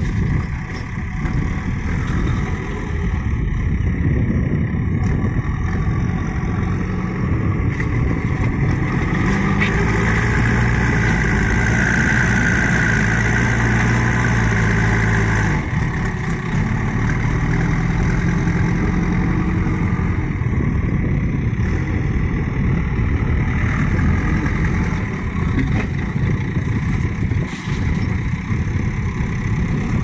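JCB 3DX backhoe loader's diesel engine running continuously as the machine digs into a soil pile and lifts its front loader bucket. About ten seconds in the engine works harder and holds a higher, steadier note for about six seconds, then drops abruptly.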